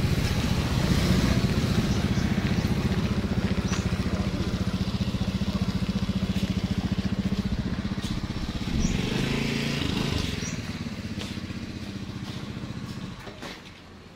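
Motorcycle engine running steadily, its note shifting briefly about two-thirds of the way through, then dying away in the last second or so.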